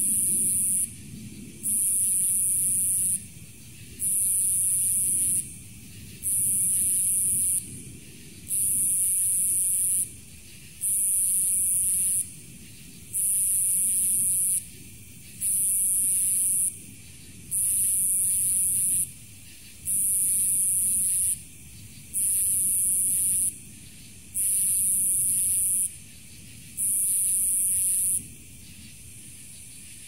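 Night insect calling in a rhythmic, high-pitched buzz: pulses about a second and a half long with shorter gaps, repeating about every two seconds over a faint low rumble of background noise. The pulses stop near the end.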